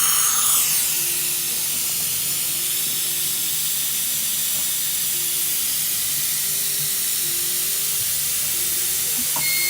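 Dental suction running with a steady, even hiss throughout, during implant placement.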